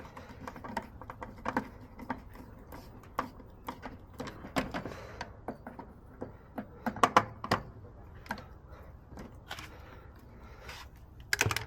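Hand tools and small parts being handled, making irregular clicks and knocks, with a louder cluster about seven seconds in and another near the end.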